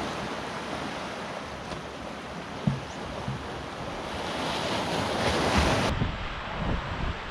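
Small waves washing and breaking over a granite rock shelf, swelling about five seconds in, with wind gusting on the microphone toward the end.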